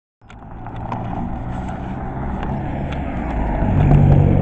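Road traffic: a motor vehicle's engine running close by with a steady low hum, growing louder near the end, with a few faint clicks.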